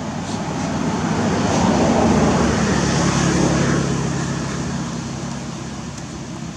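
A motor vehicle passing by: its engine and road noise swell to a peak about two to three seconds in, then fade away.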